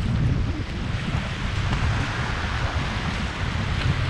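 Wind buffeting the microphone with a heavy, gusting rumble, over the hiss of small waves washing up a sandy beach.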